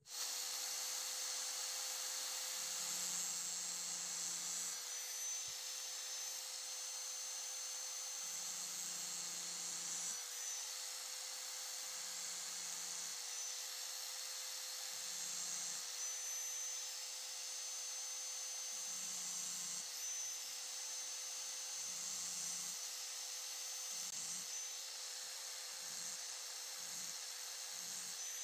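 Small electric angle grinder running with a steady high whine and a hissing grind as its disc works a knife. Every few seconds a heavier, lower grinding sound comes and goes as the disc bears on the steel, more often near the end.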